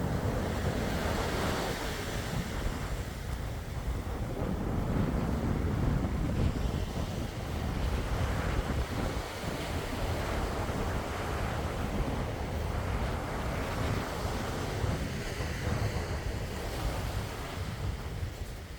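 Sea waves breaking and washing in, swelling and easing every few seconds, with wind rumbling on the microphone.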